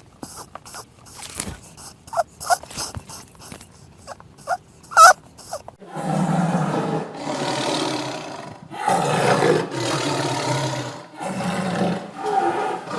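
A few scattered clicks and short chirps, then a large animal roaring, about five long harsh roars in a row starting about six seconds in.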